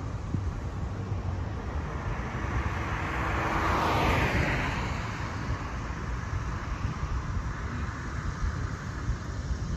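A car driving past close by: its tyre and engine noise swells, is loudest about four seconds in, then fades away, over a steady low rumble of street noise.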